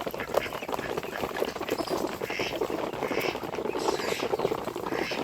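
A flock of farm poultry, ducks among them, calling and chattering, with a short call standing out every second or so over constant clatter and scratching.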